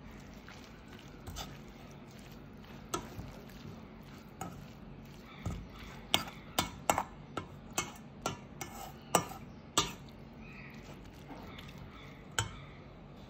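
Metal spoon tossing shredded mango salad in a stainless steel bowl: soft stirring with sharp clinks of spoon against the bowl, including a quick run of about ten clinks in the middle.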